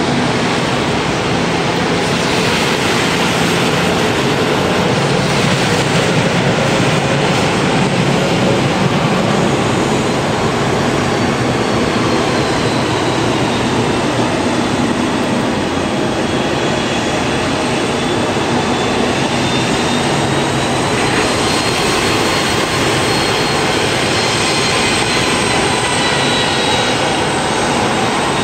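Twin rear-engined jet airliner taxiing, its engines giving a faint high whine that dips and rises slowly, over a loud steady wash of rain and wet-road noise.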